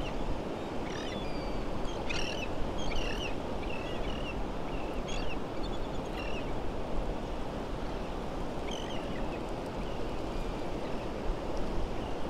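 Many short, chirping calls from birds scattered over a steady rush of water and wind at the shore.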